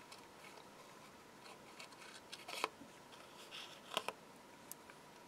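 Small pointed craft scissors making a few quiet snips into a printed die-cut decoupage card layer. There is one sharper snip about halfway through and two close together near the end.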